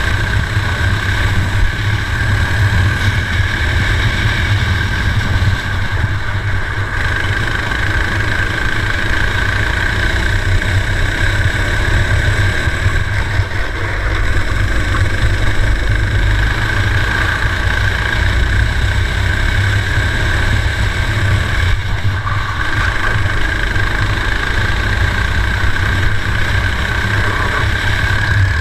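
Racing kart engine heard onboard from the kart's own chassis, running hard under race load for the whole stretch, with a brief drop in its higher sound a few times.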